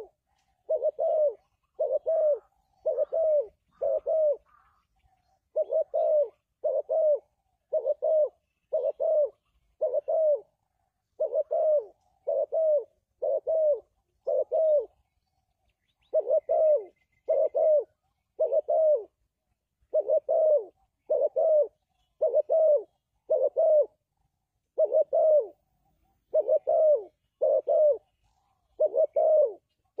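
Spotted dove cooing: a long, even series of short, low coos, about one a second, with a brief pause near the middle.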